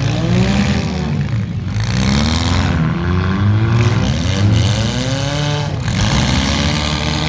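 Demolition derby car engines revving hard and easing off over and over, several at once, their pitch repeatedly rising and falling.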